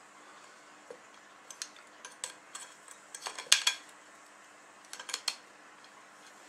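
A small metal tool clicking and scraping against the aluminium end cap of a T8 fluorescent tube as the cap is pried and bent open. The clicks come irregularly, the loudest cluster about three and a half seconds in.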